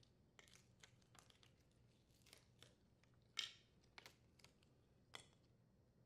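Faint, scattered clicks and scrapes of a dryer door hinge and its small parts being handled while a retention screw and gasket are moved from the old hinge to the new one. The sharpest click comes about three and a half seconds in, another near the end, over a low steady hum.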